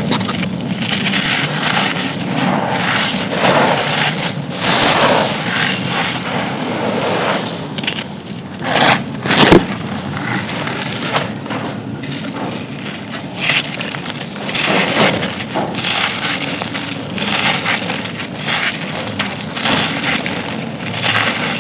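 Dry black concrete slabs crumbling and being crushed: dense, crisp crunching and crackling that goes on throughout, with louder snaps about four and a half seconds in and again at about nine seconds.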